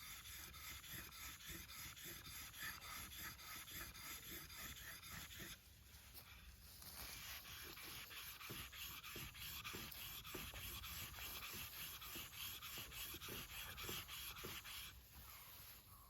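A nata (Japanese hatchet) blade being sharpened, rubbed back and forth in rapid, repeated scraping strokes. There is a brief pause about six seconds in before the strokes resume.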